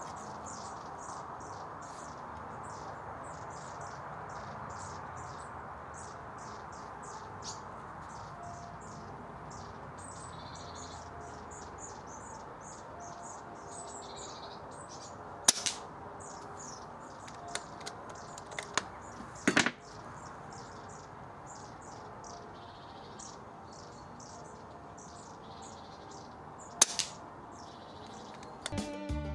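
Kalibrgun Cricket .22 PCP air rifle fired three times: sharp cracks about halfway through, again some four seconds later, and near the end, with a few lighter clicks between the first two shots. Birds chirp throughout over a steady background hiss.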